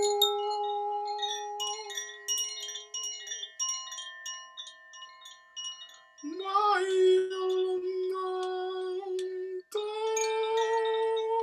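Chimes tinkle in a run of light, ringing strikes over a voice holding long, steady sung tones. About six seconds in, the voice slides up into a new held note, and a higher one follows near the end.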